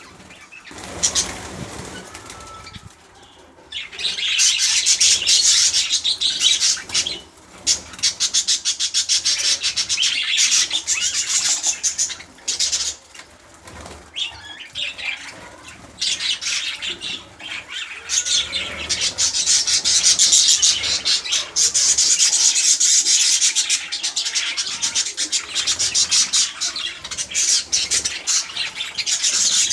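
Budgerigars chattering and fluttering: a dense, scratchy high-pitched twittering that comes in long spells with short lulls, building up after the first few seconds.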